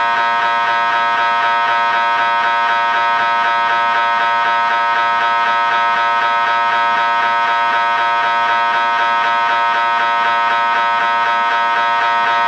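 Continuous electric buzzer sounding at one unchanging pitch, a harsh, loud buzz.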